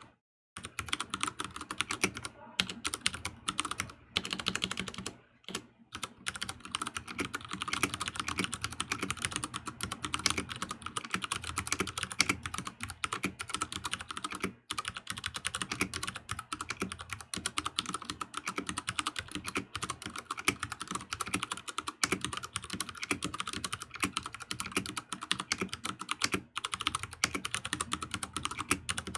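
Fast, continuous typing on a Ducky One 2 TKL mechanical keyboard with Cherry MX Brown switches: a dense clatter of keystrokes, broken by a few short pauses in the first six seconds.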